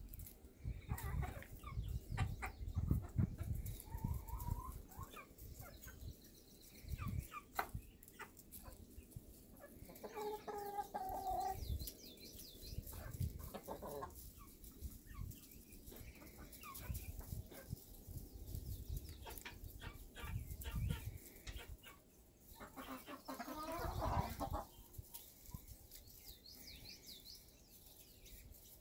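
Hens clucking as they feed, with a few longer drawn-out calls spread through, over scattered short clicks and a low rumble.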